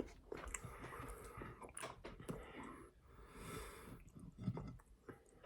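Faint scattered clicks and rustles from close handling and mouth noise, with a soft breath about three and a half seconds in.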